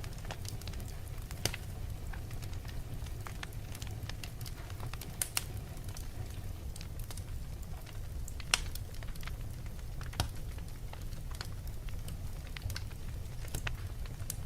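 Fire crackling: scattered sharp pops, the loudest a little past halfway, over a steady low rumble.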